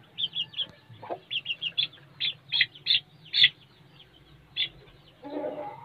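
Lasani Aseel chicks peeping: quick runs of short, high notes, three to five at a time, loudest in the middle. A brief lower, rougher sound comes near the end.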